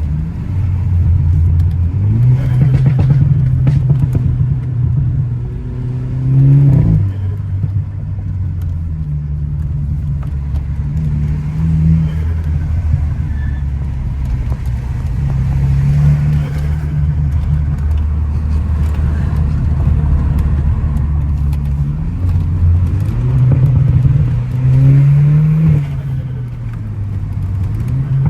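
Car engine accelerating hard and easing off on a winding road, its pitch climbing through each pull and dropping back at each shift or lift, several times over.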